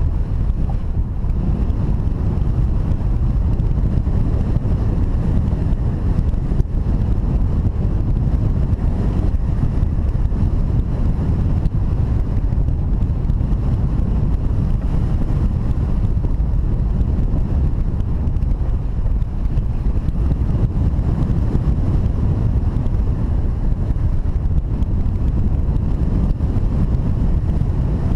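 Wind buffeting the microphone: a steady, loud, low rumbling rush with no breaks.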